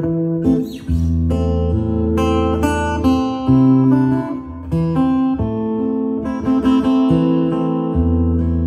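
Acoustic guitar music, with plucked and strummed notes over deep bass notes held about a second each, played back through an Electro-Voice Everse 12 portable PA speaker as a sound test.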